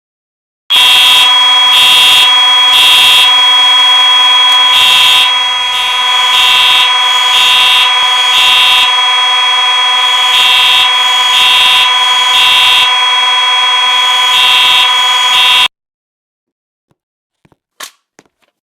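A mix of fire alarm horns, mostly Simplex, sounding together. A steady buzzing horn tone carries throughout, with another horn pulsing on and off roughly once a second over it. The horns start under a second in and cut off suddenly after about fifteen seconds, followed by a few faint clicks.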